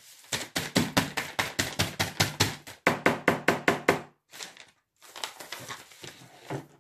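A paint-loaded tool dabbed quickly and repeatedly onto paper laid over a table, about five taps a second for around four seconds, then softer, scattered tapping and scraping.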